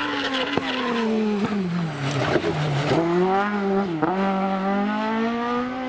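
Race car engine on a hillclimb run: its pitch falls for about three seconds while the car slows, with a few sharp cracks, then climbs hard under acceleration, dipping briefly at a gear change about four seconds in before rising again.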